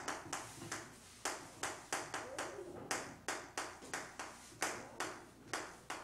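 Chalk tapping and scratching on a blackboard as a line of writing is put down: a quick, even run of sharp taps, about three a second.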